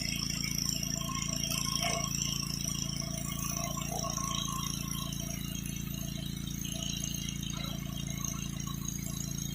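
Gas-engine pressure washer running steadily, with a steady high hiss from the spray and a light rattle.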